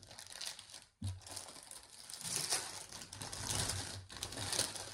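Plastic bag crinkling and rustling in irregular flurries as it is handled, a packet of cross-stitch embroidery threads.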